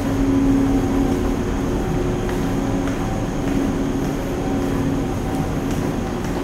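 Steady low drone of the car ferry Tokiwa Maru's diesel engines and machinery, heard inside the passenger deck, with a humming tone that swells and fades.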